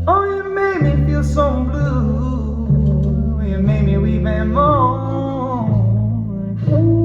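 Recorded music played back through Dynaudio Contour 30 loudspeakers and picked up by a phone microphone: a voice sliding between notes over a plucked bass line and guitar.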